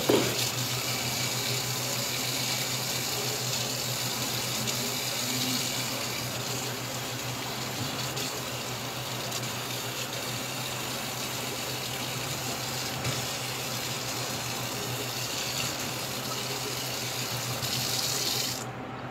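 Faucet running a steady stream of water into a stainless steel sink and over a metal mesh strainer. The water is shut off near the end.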